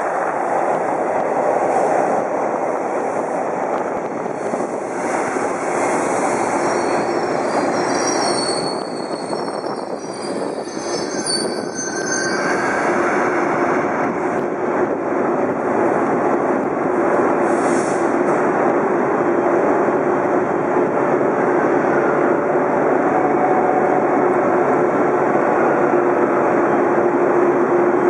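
TTC Hawker-Siddeley H4 subway train rolling along the track through an underground station and slowing, with a high wheel squeal about a third of the way in. Afterwards the train runs slowly with a steady hum under the rolling noise.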